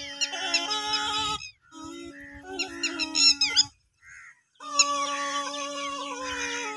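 Snake charmer's been (pungi) music: a nasal reed melody played over a steady drone. It breaks off briefly about one and a half seconds in and again for nearly a second midway, then resumes.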